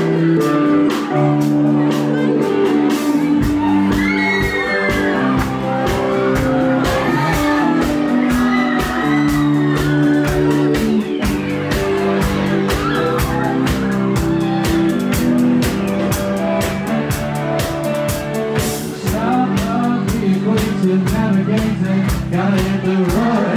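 Live band playing: sustained keyboard and guitar chords with bass, joined about three seconds in by a steady drum-kit beat, with voices over the music.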